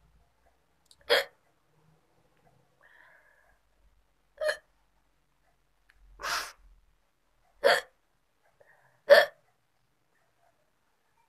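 A woman hiccupping five times, each hic short and sharp, one every one and a half to three seconds. The third is a little longer than the others.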